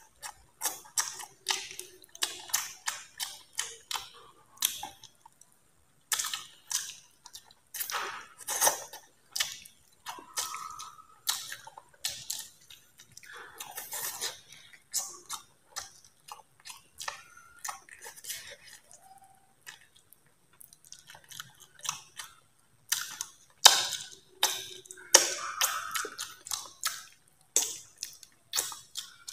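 Close-up mouth sounds of eating steamed eel by hand: wet lip smacks, sucking and chewing as the flesh is stripped from the backbone, in quick irregular clicks.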